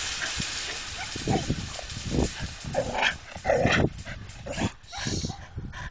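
A dog barking several times in short separate bursts, after a rush of hiss-like noise in the first second.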